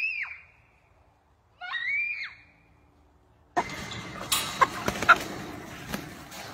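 A person gives two short, high-pitched screams, each rising then falling in pitch, while dodging an attacking rooster. After a sudden cut about three and a half seconds in, a dense rustling clatter with scattered sharp knocks comes from chickens crowding against a wire-mesh pen.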